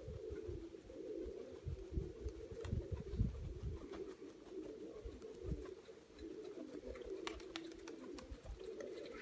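Several Mykolaiv pigeons cooing continuously in low, overlapping warbles, with scattered low thumps underneath.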